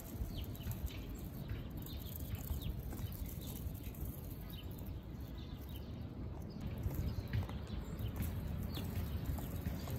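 Low rumble of quad roller-skate wheels rolling over an asphalt path, with small birds chirping now and then.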